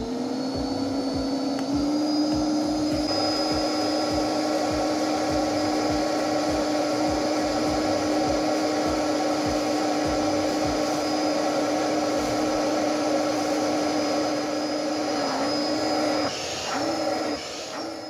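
Philips SpeedPro Max cordless stick vacuum running on its highest (turbo) setting, sucking up spilled tea from the floor. It gives a steady motor hum with a high whine, stepping up slightly in pitch about two seconds in. Near the end the pitch dips and wavers.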